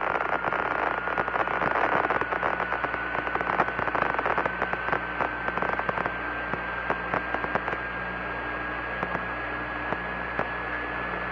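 Steady hiss and crackling of the Apollo 11 air-to-ground radio channel with no one transmitting, over a low hum. A thin whistle-like tone runs through it, rising slowly in pitch.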